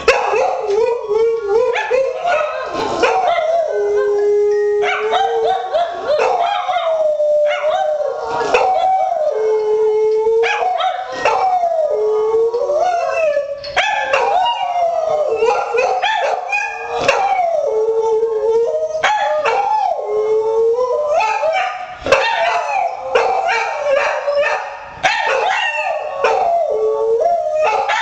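A hound and a poodle howling together, two long wavering voices overlapping almost without a break. It is their response to a phone's missed-call alert.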